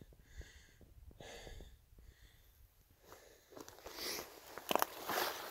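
A hiker's heavy breathing, then crunching and clicking of loose rock and gravel that starts about three and a half seconds in and grows louder.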